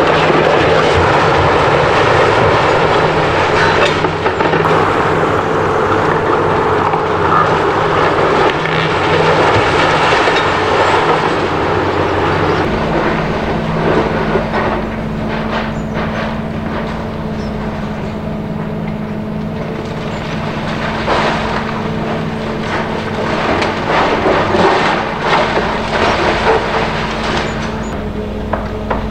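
Demolition excavator with a hydraulic crusher on its arm breaking up a concrete, brick and sheet-metal clad building: a continuous crunching and clattering of concrete and cladding breaking and falling, over the excavator's engine running. About halfway through the clatter thins to a steady engine drone with scattered knocks and crashes of falling debris.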